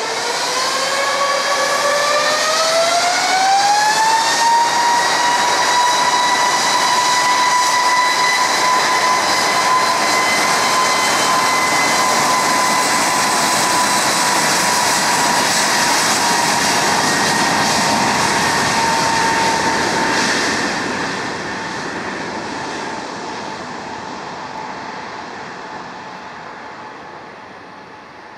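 Twin jet engines of an Airbus A320-family airliner spooling up to takeoff power, a whine that rises in pitch over the first four seconds and then holds steady. About twenty seconds in, the sound begins to fade as the jet rolls away down the runway.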